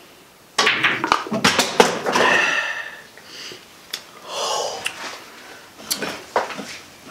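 Men gasping and breathing out hard right after chugging beer, starting suddenly about half a second in, with sharp knocks of beer cans being set down on a table.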